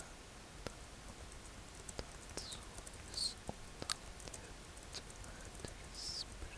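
Quiet close-miked study sounds: scattered small clicks and taps with a few brief soft rustles, irregular and unrhythmic.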